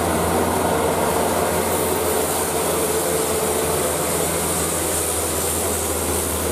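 Diesel engine of a loaded Hino light dump truck running steadily as the truck drives close past, with a hiss of tyres and air that swells about two seconds in as it comes alongside.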